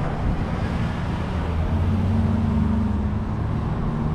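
A vehicle engine running with a steady low hum that grows stronger about two seconds in, over general street noise.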